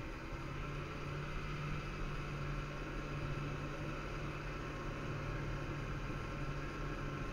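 Snowmobile engine running at a steady pitch while the sled moves across the snow.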